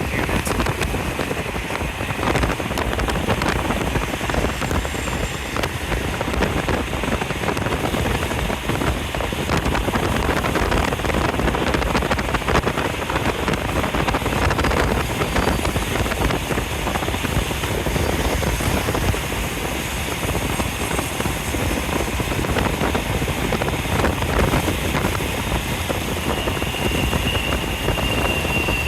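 A train rolling past, a steady rumble of wheels on rail with wind buffeting the microphone, and a brief high squeal near the end.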